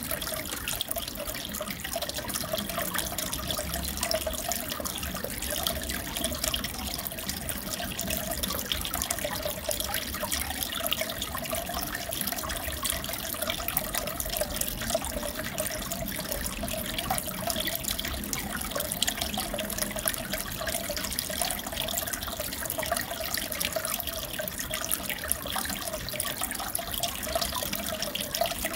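Aquarium water trickling and bubbling steadily, with small splashes and a steady wavering hum underneath.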